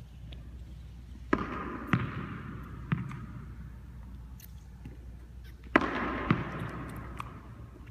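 A ball striking hands and the hardwood floor in a large gymnasium, five sharp thuds that echo around the hall. Three come in the first few seconds and two more come close together near the end. A low steady hum of the room lies underneath.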